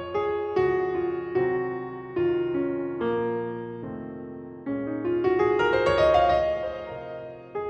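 Gentle solo piano music: single notes and chords struck one after another, each fading away, with a quick run of rising notes about five seconds in.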